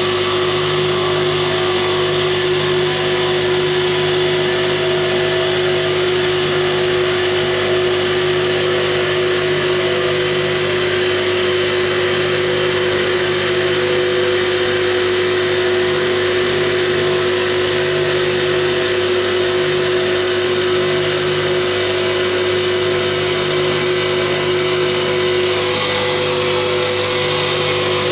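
A CNC stone polishing machine running steadily: a constant motor whine over a broad, even noise from the polishing head. The whine shifts slightly near the end.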